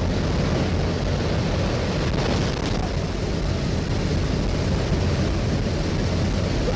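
Steady drone of the aircraft's engine mixed with the rush of wind through the open jump door, heard inside the cabin.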